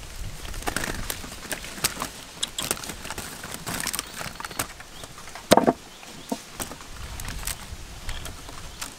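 Young green mangoes tipped out of a wicker basket onto a woven bamboo tray, with scattered knocks and clicks and one louder thump a little past the middle.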